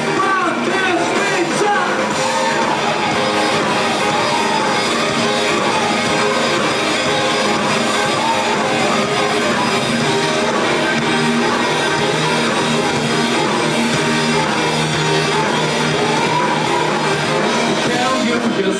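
Live rock band playing loud amplified music, with electric guitar over bass and drums in a passage without lyrics.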